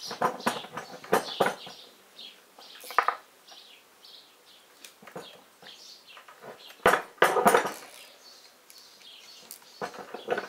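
Metal clinking and clattering as the cast-iron body of a tractor hydraulic control valve and steel wrenches are handled and set down on a wooden table: irregular knocks and clinks, the sharpest about seven seconds in.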